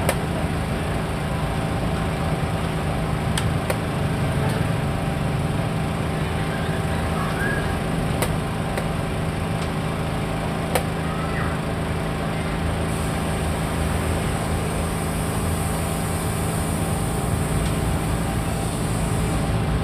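A steady low engine hum runs throughout, with a few sharp clicks of xiangqi pieces being set down on the wooden board and the chess clock being pressed. A high hiss comes in about two-thirds of the way through.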